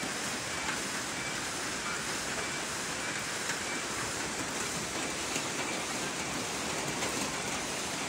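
Heavy rain falling steadily on foliage and gravel ground, a dense, even hiss with a few faint drop ticks.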